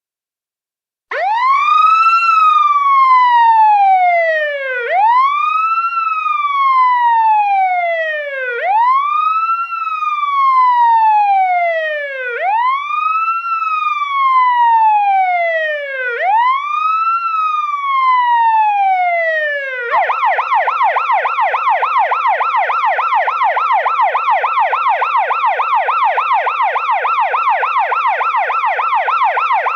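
Stationary police car siren sounding a slow wail, five long rise-and-fall sweeps, then switching about two-thirds of the way through to a fast yelp of roughly four sweeps a second.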